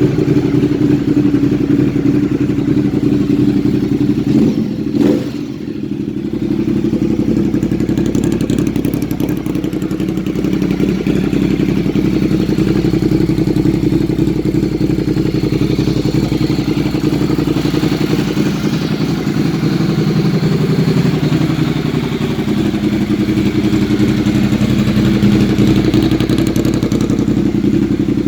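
Ducati Monster 1200R's L-twin engine running steadily, with a short dip in level about five seconds in.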